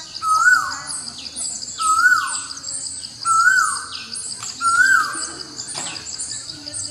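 Forest birdsong: one bird repeats a short whistled call that rises and then slides down, four times about every second and a half, over a steady high trill and other birds' quick high chirps.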